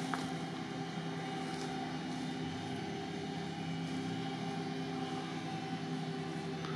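An off-road 4x4 vehicle's engine running at steady revs, a constant low drone.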